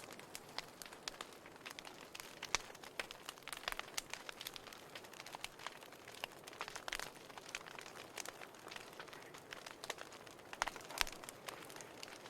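Wood fire crackling in a fireplace: irregular sharp pops and snaps over a faint steady hiss, with a few louder pops near the end.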